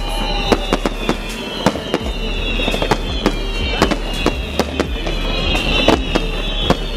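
Fireworks display: sharp bangs of bursting shells, about two to three a second, over repeated high whistling tones that slide slowly down in pitch.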